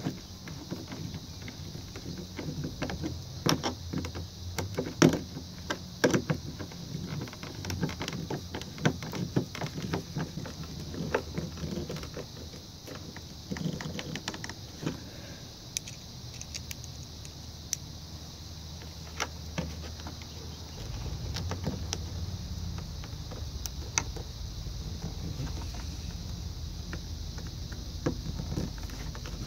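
Hand screwdriver driving small screws into a plastic ice-chest hinge: irregular clicks and scrapes of the bit turning in the screw heads, busiest in the first half. A low steady rumble comes in about two-thirds of the way through.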